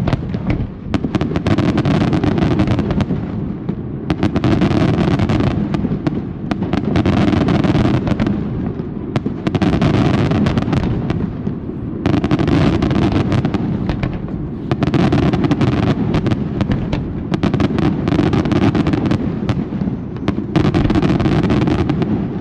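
Fireworks display in a dense, continuous barrage of bangs and crackling, swelling and easing every two or three seconds.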